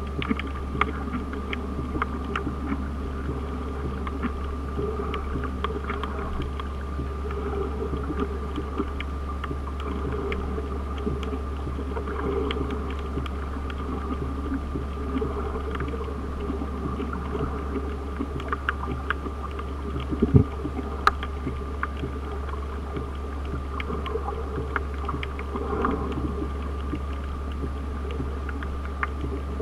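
Underwater ambience picked up by a submerged camera: a steady, muffled low rumble with a faint hum and many small scattered clicks and crackles, and a short louder cluster of clicks about two-thirds of the way through.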